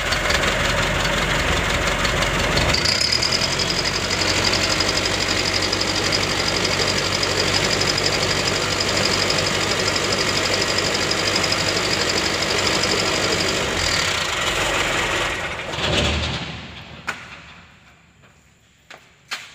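Hino Dutro 130 HD truck's diesel engine running steadily, heard close up from under the truck. A thin high whine runs over it from about three seconds in until about fourteen seconds. The sound then dies away near the end, leaving a few light clicks.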